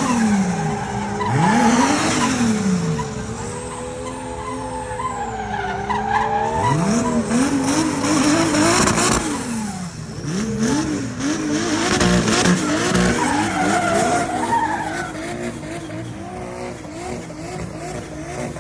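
Gumball 3000 rally cars' engines revving, the pitch climbing and falling several times, with a wavering engine note through the second half.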